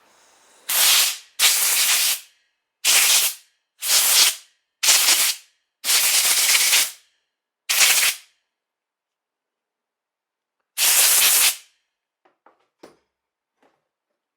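Compressed-air blow gun firing eight short blasts of hissing air, each cut off sharply, followed by a few faint clicks near the end.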